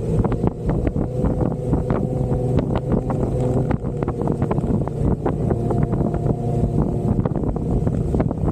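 Jeep Wrangler engine running steadily while driving off-road, with frequent short knocks and rattles throughout.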